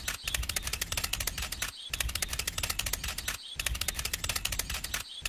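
Rapid clattering clicks, many a second, in stretches of about a second and a half broken by short pauses, like fast typing.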